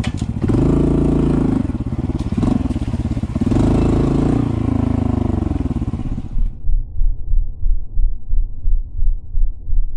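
Honda CT125 motorcycle's single-cylinder engine revving, its pitch rising and falling. About six and a half seconds in, the sound turns into a slowed-down replay and becomes a deep, muffled throbbing of about one and a half pulses a second.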